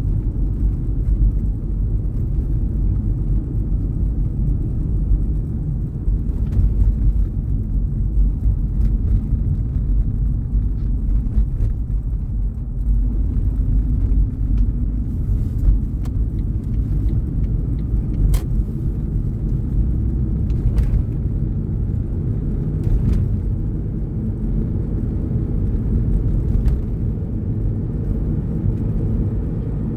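Car driving on snowy city streets: a steady, low rumble of engine and tyres, with a few faint clicks.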